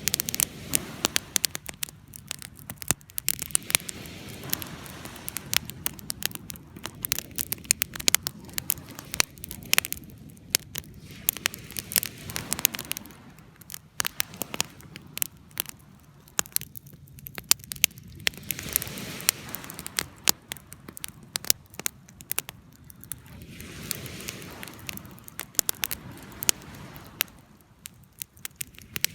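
Campfire crackling with frequent sharp pops, over a steady rush of noise that swells and fades every few seconds like waves washing on a beach in the wind.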